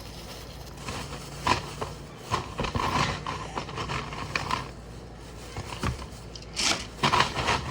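Irregular clicks, knocks and scrapes of ice and plastic containers being handled and moved about, with a louder clatter near the end.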